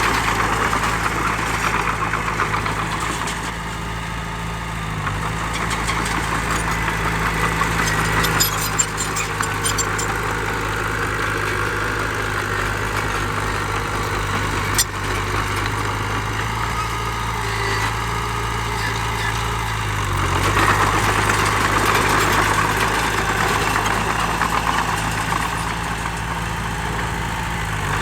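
Heavy earthmoving machine's diesel engine running steadily, its note shifting slightly a few times, with a few short sharp clicks near the middle.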